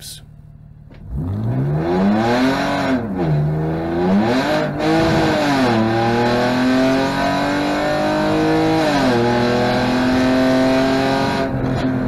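BMW E46 engine revving hard at full throttle, heard from inside the cabin. Its revs climb, sag and climb again in the first few seconds as the rear tyres spin in an unintentional burnout, then rise steadily. About nine seconds in the revs drop sharply and then hold.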